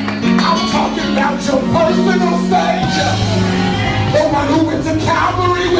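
Live music with singing over steady bass notes, and voices shouting along.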